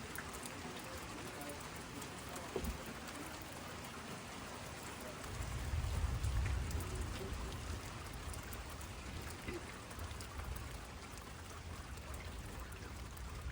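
Steady rain falling, with scattered single drops ticking. About five seconds in, a low rumble swells for a few seconds and fades.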